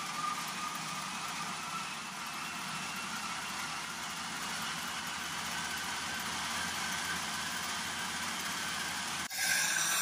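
A treadmill belt and motor running at speed under a wooden model steam locomotive whose wheels, rods and wooden gears whir along: a steady whirring with a faint high whine that creeps up in pitch. Near the end the sound cuts abruptly to a louder, brighter mechanical rattle from the wooden gearing.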